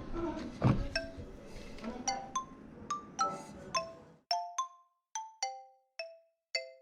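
Background music of light struck mallet-percussion notes, like a glockenspiel or music box, about two or three a second. For the first four seconds an even noise runs under the music, loudest just under a second in, then cuts off suddenly.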